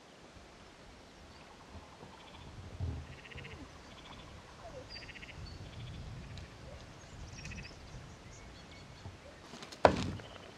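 Frogs calling in short rattling trills, several in a row, over a faint low rumble. Near the end a single loud sharp knock.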